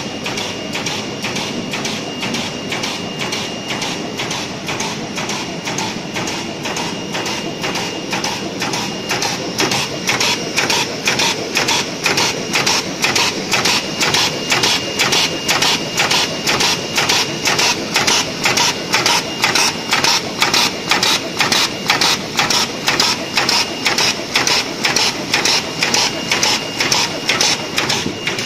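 Automatic bag-making machine running, cycling with a steady rhythmic clatter of about two to three strokes a second, which grows louder about ten seconds in.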